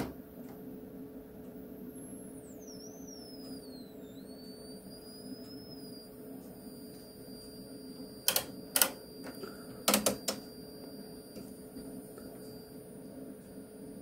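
A transformer winding, driven by a function-generator amplifier, sings with a thin high whine that glides down and back up as the drive frequency is swept, then holds steady, over a faint steady hum. A few sharp clicks of an oscilloscope's rotary switch come about eight and ten seconds in.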